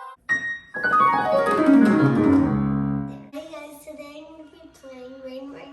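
Electronic keyboard playing a fast run of notes that steps down from high to low over about two and a half seconds, then quieter sounds for the rest.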